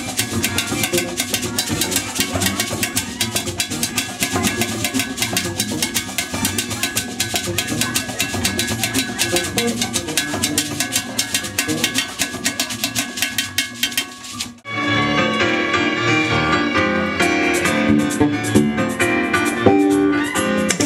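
Live band music: hand drums (bongos and congas) played in a fast, dense rhythm over bass guitar. About fourteen and a half seconds in, the sound drops out for a moment and the music comes back with a fuller, more melodic mix.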